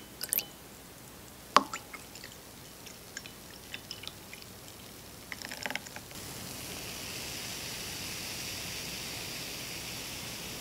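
A glass cup clinks lightly a few times as matcha is stirred in it, with one sharp clink about a second and a half in. From about six seconds, frothed milk is poured into the cup with a steady pouring hiss.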